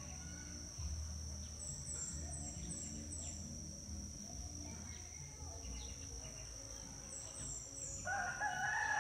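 Outdoor garden ambience: a small bird gives runs of short, high, falling chirps, over a steady high-pitched tone. A rooster starts crowing about a second before the end.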